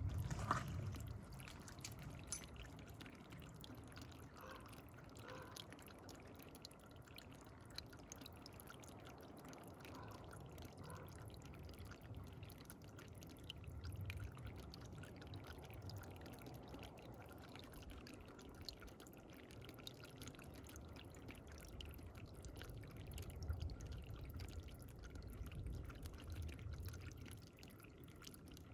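Water trickling and dripping, faint and steady, with small ticks and an occasional low rumble swelling in and out.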